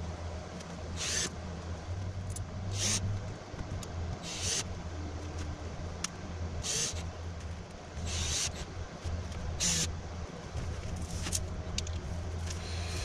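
About six short rasping noises, a second or two apart, with a few faint clicks, from hand work on a ceiling-mounted curtain track, over a steady low hum.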